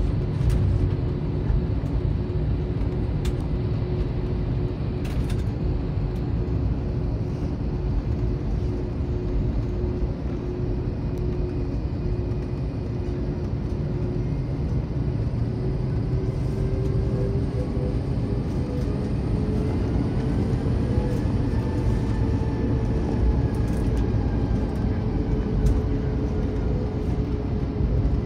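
Cabin noise of an Airbus A321 taxiing: a steady low rumble with an engine hum that rises in pitch about halfway through and then levels off.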